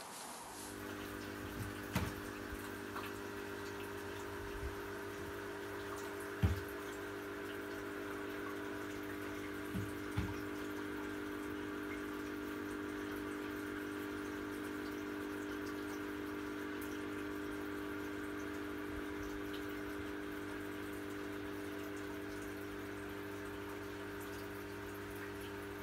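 Small electric brewing pumps on a stainless home-brew rig humming steadily, with a few scattered drips of water.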